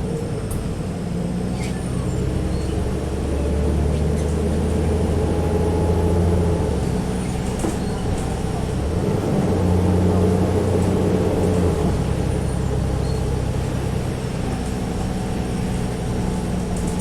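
Alexander Dennis Trident double-decker bus's diesel engine pulling away under load with a high turbocharger whistle. The engine note builds and drops back twice, about seven seconds in and again about twelve seconds in, as the ZF Ecomat automatic gearbox changes up.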